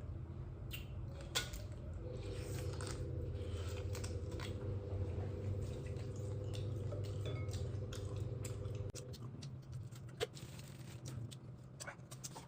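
Small clicks and clinks of eating and of tableware being handled, over a steady low hum that fades out about nine seconds in.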